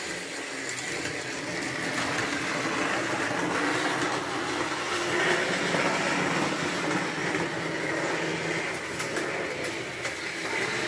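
Vintage Märklin three-rail model train running on its track: a steady whir and rumble of the locomotive motor and wheels, growing louder over the first few seconds.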